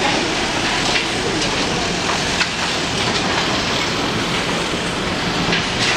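Steady noise of traffic on a busy city street, with a few light clicks.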